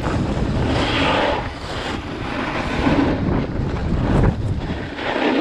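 Wind buffeting the microphone of a GoPro action camera during a ski run, a rough, rumbling rush that swells and eases, with a higher hiss rising over it about a second in and again near the end.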